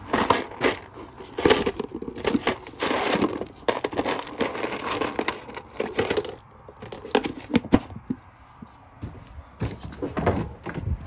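Plastic tub of hard horse treats being handled: the lid is pulled off and a hand rummages through the treats, a busy run of clicks, rattles and rustling that dies down about eight seconds in, with a last bit of handling noise near the end.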